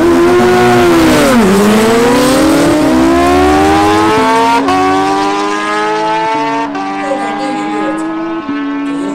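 Two inline-four sport motorcycles, a Suzuki Hayabusa and a Kawasaki Ninja 636, launching off the drag-strip start line at full throttle. The engine note dips about a second and a half in, then climbs in a series of rising sweeps, dropping back at each of several upshifts, and slowly fades as the bikes pull away.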